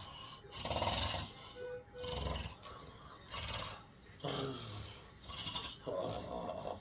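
A sleeper with obstructive sleep apnea snoring and snorting loudly in harsh, animal-like bursts, about five of them, each a second or so apart.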